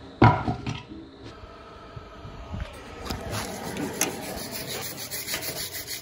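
A loud knock just after the start, then quick rhythmic scraping strokes of a wire brush, several a second, from about halfway through.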